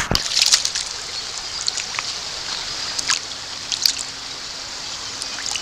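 A brook trout splashing and flopping in shallow creek water at the stony edge, over the steady rush of the stream: a burst of splashes in the first second, then a few smaller ones.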